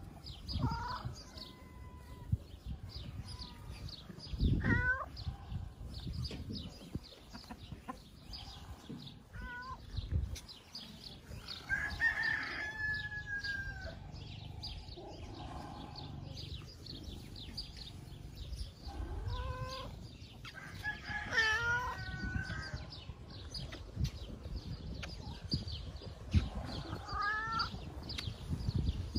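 Roosters crowing several times, one long held crow near the middle, with hens clucking in between.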